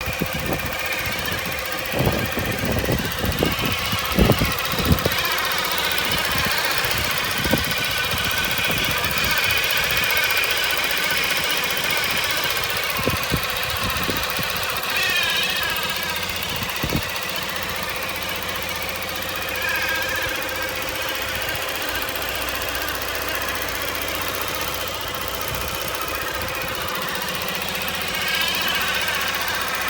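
Fiat 500 0.9 TwinAir two-cylinder engine running, with a screeching, grinding noise that goes up and down in pitch. The noise persists after the alternator and pulley were changed, and its cause is undiagnosed. Several sharp knocks are heard in the first few seconds.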